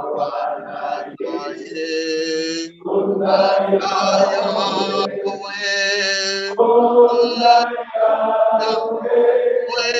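A man singing a worship chant in long held notes.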